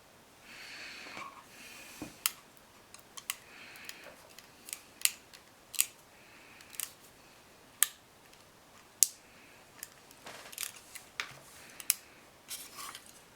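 Sharp, irregular clicks and brief scrapes of small model-kit parts being handled and pushed into place, with a dozen or so separate clicks and a few short rustling scrapes between them.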